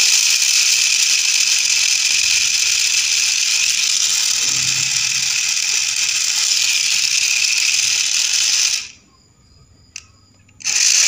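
Homemade RC gearbox driven by its electric motor, running at speed with a steady, rattling whir of gears. It cuts off about nine seconds in, and a short burst of running follows near the end.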